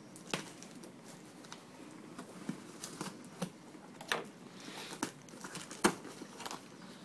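Knife slitting packing tape on a cardboard box, then the box's cardboard flaps being pulled open: scattered clicks, scrapes and tearing, the sharpest click about six seconds in.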